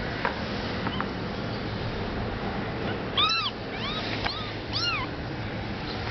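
Newborn kitten mewing while held up in a hand: four short, high mews a few seconds in, each rising then falling in pitch, the first the loudest.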